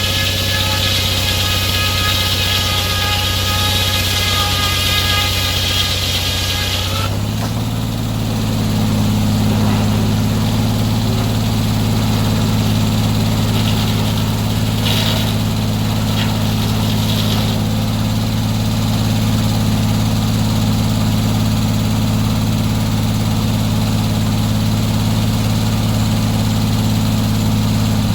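Sawmill engine running steadily under load, with a high whine over it. About seven seconds in, the whine cuts off and the engine pitch rises slightly, as when the blade comes out of the cut and the load drops; the engine then runs on steadily.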